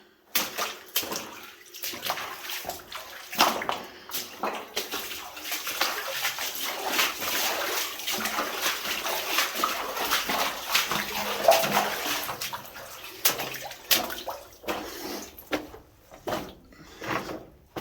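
Water sloshing and splashing steadily as someone wades through a flooded mine passage, thinning near the end to scattered separate splashes and knocks.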